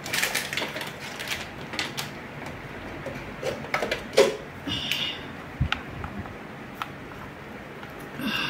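Scattered light clicks and knocks of small plastic electronics (power banks, cables and plugs) being handled and set down.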